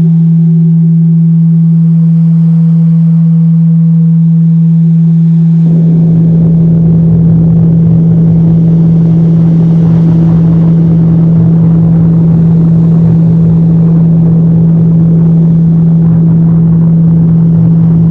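Radio signal played as audio, presented as SETI's 2010 'second Wow signal' at 4462.3 MHz: a loud, steady low hum over static hiss. About six seconds in, the static grows thicker and rougher while the hum holds.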